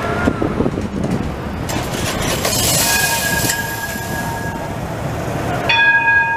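Bombardier Flexity Outlook tram rolling past close by and sounding its warning horn twice: a steady tone for about a second and a half near the middle, then a louder one near the end.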